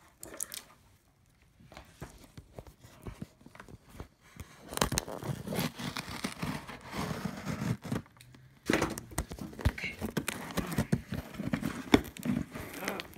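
Packing tape being cut and torn off a cardboard shipping box, with crinkling, scraping and small knocks. Mostly quiet for the first couple of seconds, then busy from about five seconds in, with a short pause around eight seconds.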